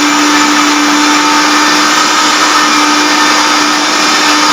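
Electric mixer grinder running at full speed, grinding chopped bitter gourd with water for juice: a loud, steady whirr with a constant hum.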